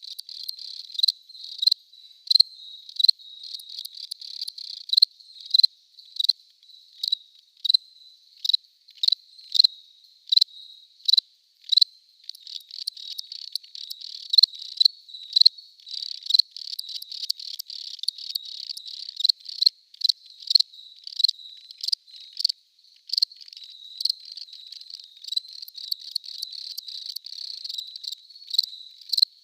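Crickets chirping: one loud, high-pitched chirp repeating evenly about every two-thirds of a second over a quieter continuous trill of other crickets, which grows fuller about halfway through.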